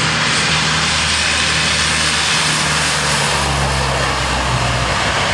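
Large transport aircraft's engines running at takeoff power as it makes its short takeoff run and gets airborne: a loud, steady roar with a low engine drone that shifts about three seconds in.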